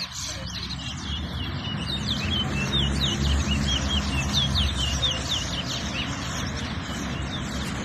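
Caged twa-twa (large-billed seed finch) singing a rapid run of short, clear whistled chirps, one song of the kind counted in a song race. A steady low rumble sits underneath.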